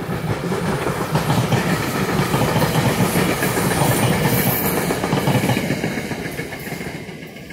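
Passenger train passing at speed: a loud rush and rumble of wheels on rail that builds over the first few seconds, peaks in the middle and fades as the train moves away.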